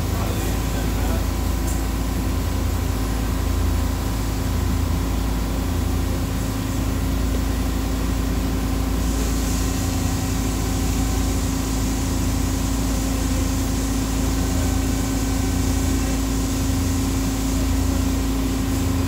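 Running CNC machines being tended by a robot arm, giving a steady industrial hum with a constant low tone. A high hiss comes in about halfway through and holds.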